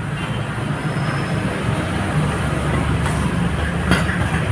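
Steady low mechanical rumble, with a sharp click about four seconds in.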